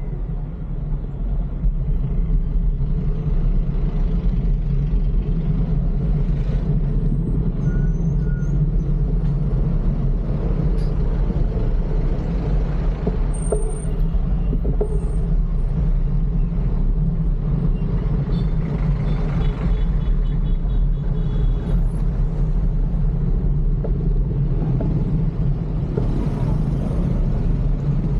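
Steady road-traffic rumble heard from a moving bicycle, with wind noise on the microphone and the engines of trucks and buses close by.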